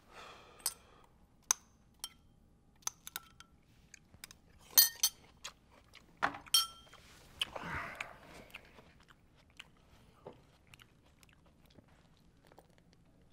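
Scattered small clicks and taps of objects being handled, the loudest cluster about five seconds in, with a breathy swell of sound lasting about a second near the middle.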